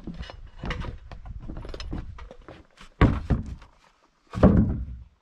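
Heavy wooden rafter knocking and scraping as it is handled onto the frame, then landing with two heavy thuds about a second and a half apart.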